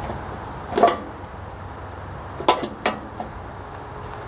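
Three clinks and knocks of hard objects being handled: one a little under a second in, then two close together past halfway, over a low steady hum.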